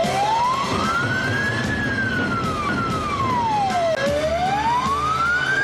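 Ambulance siren wailing, its pitch sliding slowly up and down, one rise and fall roughly every four seconds.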